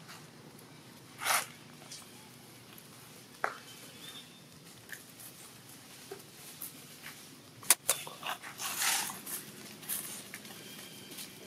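Long-tailed macaques grooming and shifting about in dry leaf litter: scattered short rustles and soft animal sounds, with one sharp click about eight seconds in.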